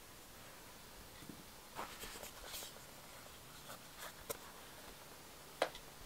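Faint scratchy rustling and light taps of hands handling iPhone packaging, the coiled charging cable and a white cardboard piece of the box, with one sharper tap near the end.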